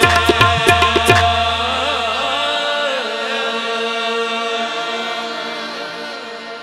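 Qawwali music: tabla strokes stop about a second in, leaving harmonium chords held and slowly fading, with a singer's voice winding over them before the next verse.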